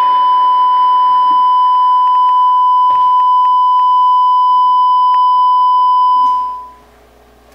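A loud, steady electronic beep tone held at a single pitch for about six seconds, then fading out near the end, with a few faint clicks under it partway through.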